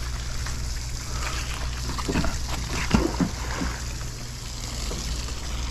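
Wet rope being hauled hand over hand out of the water, dripping and splashing, over a steady low hum, with a few short faint sounds about two to three seconds in.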